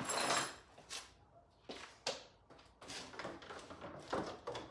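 Irregular knocks and clatters of car parts being handled and moved. The loudest clatter comes right at the start, with smaller knocks about once a second after it.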